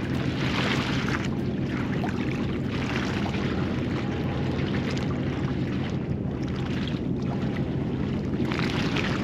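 Sea washing against a concrete breakwater in hissing surges, with wind on the microphone, over a steady low engine hum.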